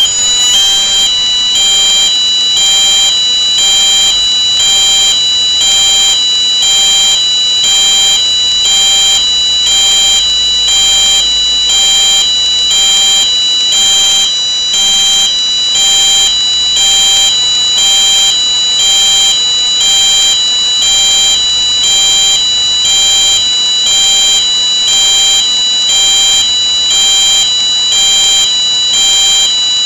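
Fire alarm sounding the hi/lo tone: two high pitches alternating about once a second, with a steady high tone held underneath.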